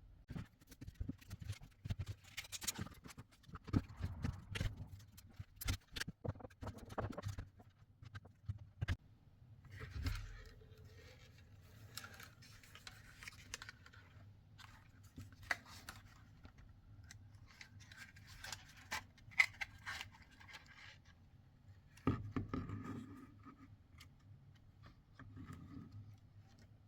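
Siemens dishwasher circulation pump/heater housing being taken apart by hand: a run of irregular clicks, then longer scraping and rustling, with a sharper knock about twenty-two seconds in.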